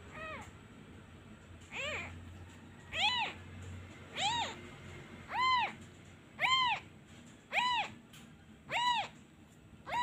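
Newborn kitten crying in a steady series of high meows, about one a second, each rising and then falling in pitch, weaker at first and then loud and even. These are the distress cries of an abandoned kitten missing its mother, which come whenever the hand is taken away from it.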